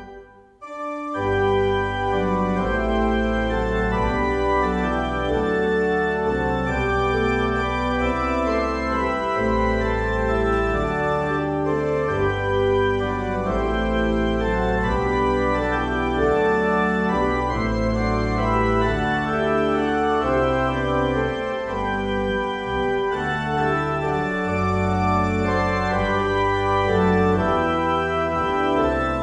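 Organ playing a hymn tune in sustained chords over a moving bass line. It breaks off for a moment right at the start and then resumes with the next stanza.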